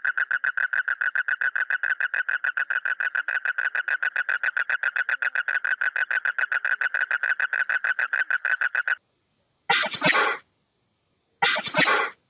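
A toad calling with its vocal sac inflated: one long, rapid, evenly pulsing trill that stops about nine seconds in. Then two short hisses, each under a second.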